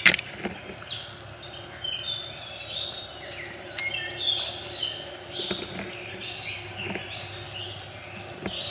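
Birds chirping and singing, many short high calls overlapping, over a steady low hum.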